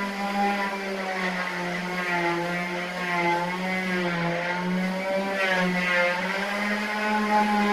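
A steady mechanical whir or hum from a running motor, holding one pitch with a slight wavering.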